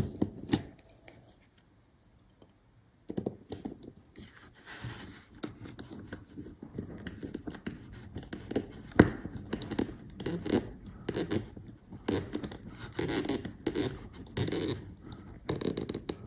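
Fingers handling the small plastic and wire parts of a model railroad switch-machine linkage close to the microphone: scratchy rustling and scraping with many small clicks. There is a short quiet pause near the start and one sharper click about nine seconds in.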